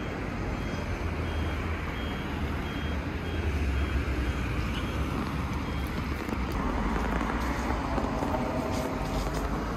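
Road traffic passing close by: car and minibus engines rumbling and tyres hissing on the road, loudest about four seconds in as a minibus goes past. A faint high beep repeats steadily through the first half.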